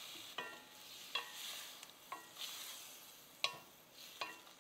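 Wooden spatula stirring cauliflower in a stainless steel pan. It knocks against the pan about five times, each a short tap with a brief metallic ring, over a faint sizzle of the hot liquid in the pan.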